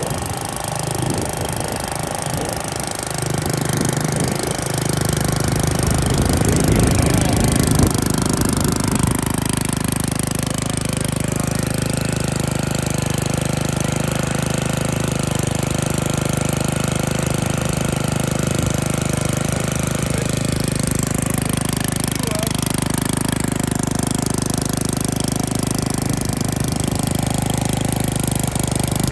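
Troy-Bilt Bronco tiller's small gasoline engine running, a little uneven for the first several seconds and then settling into a steady, even run with no popping back.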